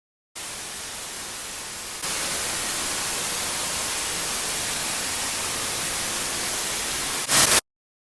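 Television static: an even white-noise hiss of a broadcast signal failing. It starts abruptly, steps louder about two seconds in, and ends in a brief louder burst that cuts off sharply.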